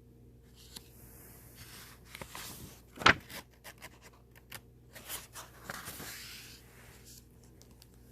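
Paper rustling and handling of a picture book as its pages are turned, with scattered light clicks and one sharp click about three seconds in.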